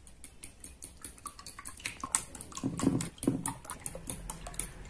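Raw eggs being beaten by hand in a glass bowl: a utensil clicks rapidly and irregularly against the glass while the liquid egg sloshes, louder and wetter about halfway through.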